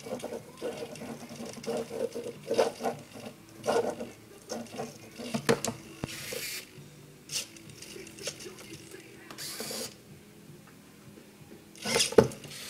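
Hobby servos of a homemade Arduino-controlled drawing arm whirring and buzzing in short, jerky, irregular bursts as the arm swings its pen around, with a sharp knock about twelve seconds in.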